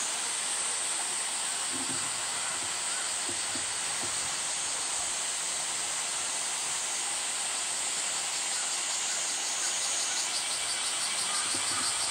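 Cicadas in a steady, high-pitched chorus, taking on a fast pulsing beat near the end.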